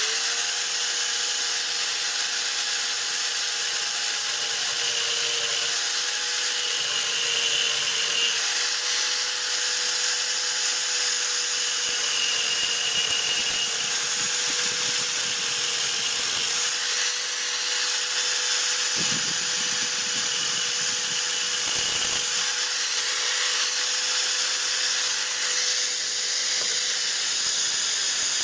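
High-speed rotary tool running continuously with a steady high-pitched whine, trimming back the marked edge of a fuse box housing.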